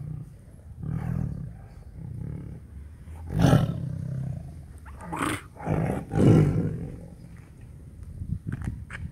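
Tiger growling and snarling over a piece of raw chicken it is eating: a series of low rumbling growls, the loudest about three and a half, five and six seconds in. The sound of a tiger guarding its food.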